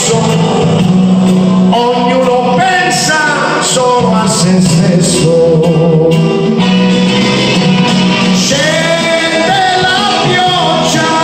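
A man singing into a handheld microphone, holding long notes, over an electronic keyboard accompaniment.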